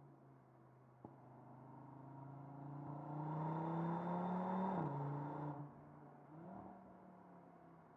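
Audi RS 3's turbocharged 2.5-litre five-cylinder engine runs at a low steady note, then pulls with its pitch rising and growing louder for about three and a half seconds. The note falls away about five seconds in, gives one short brief rise, and settles back to a low steady hum.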